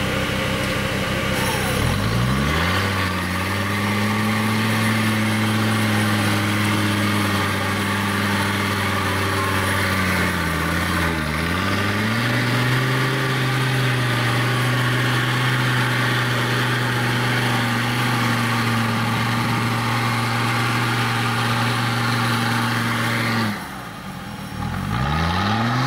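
Engine of a modified off-road 4x4 held at high revs under heavy load as it claws up a steep muddy slope, with its wheels spinning. The revs climb about two seconds in, dip briefly and pick up again around the middle, and drop off near the end before a short rev once more.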